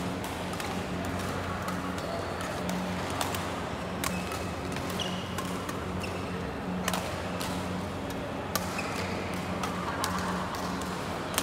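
Badminton play: sharp cracks of rackets hitting the shuttlecock every second or two at irregular spacing, with short squeaks of court shoes, over a steady low hum and the general noise of a reverberant sports hall.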